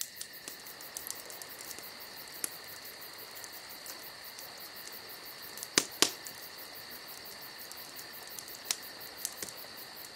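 Steady high-pitched insect chorus, a continuous trill, with scattered sharp clicks; two louder clicks come close together about six seconds in.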